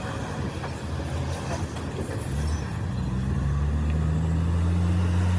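Truck engine running: a low, steady rumble that grows louder over the first few seconds and then holds.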